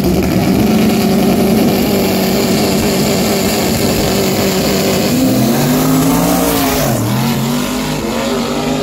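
Race car engine revving up and held at steady high revs, then falling and rising again in uneven revs about five seconds in.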